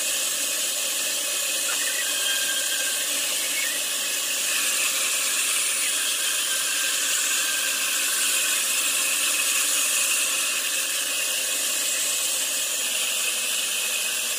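Vertical band sawmill running, a steady high-pitched hiss and whine from the turning blade and wheels with no breaks.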